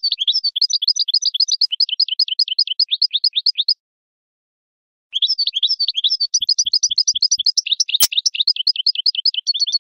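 European goldfinch singing: two long phrases of rapid chirping notes, with a pause of about a second and a half between them. A single sharp click about eight seconds in.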